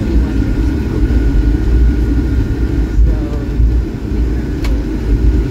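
Automated airport people-mover train running along its elevated guideway: a steady low rumble, with a faint high whine for the first few seconds and a single click near the end.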